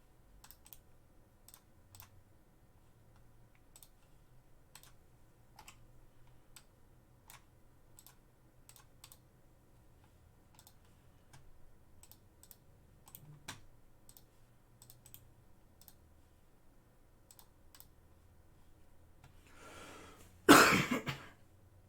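Scattered computer keyboard and mouse clicks, then one loud cough near the end, just after a faint breath.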